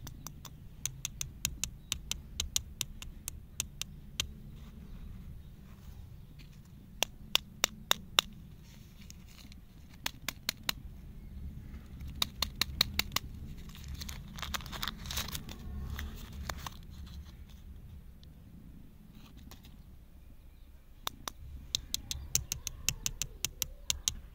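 Plastic candy wrapper being crinkled and peeled off a lollipop by hand, heard as clusters of sharp crackles with pauses between them and a longer, denser rustle about two-thirds of the way through.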